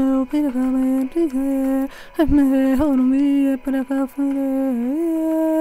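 A woman's voice chanting slowly in a monotone prayer chant, held almost on one note in short phrases, stepping up to a higher held note near the end.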